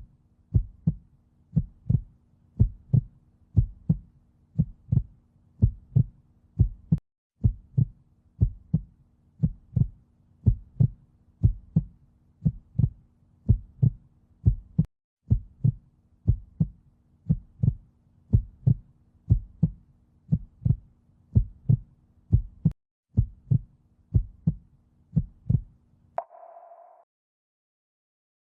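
Recorded human heart sounds: a steady lub-dub heartbeat, two low thumps per beat at about one beat a second, with a few brief dropouts. The heartbeat stops about 26 seconds in, followed by a brief faint tone.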